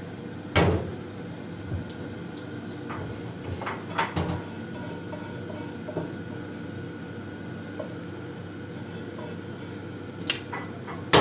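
Scattered knocks and clinks of cooking pots and utensils being handled. The loudest comes about half a second in, a few more around four seconds, and a pair near the end, all over a steady background hum.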